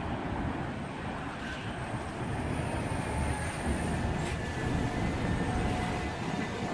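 A bus's diesel engine running with a steady low rumble that grows a little louder after about two seconds, and a faint whine joins about halfway through.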